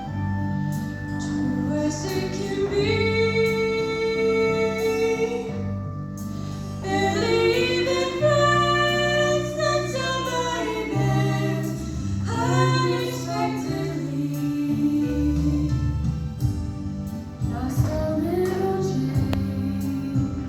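High school choir, mostly female voices, singing held, gliding notes over instrumental accompaniment with low bass notes that change every second or two.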